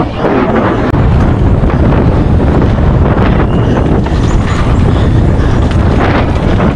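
Steady, loud wind buffeting on a helmet-mounted camera's microphone as a mountain bike runs fast down a dirt trail, with tyre rumble and scattered small knocks and rattles from the bike.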